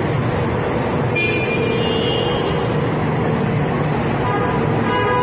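Steady traffic and engine noise close by, with a vehicle horn tooting briefly about a second in and sounding again, longer, near the end.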